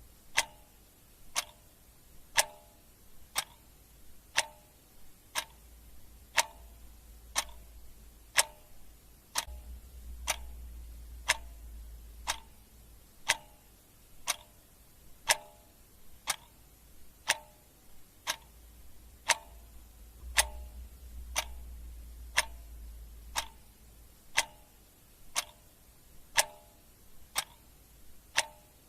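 Clock ticking steadily at about two ticks a second, alternating a louder tick with a softer tock, with a faint low hum underneath.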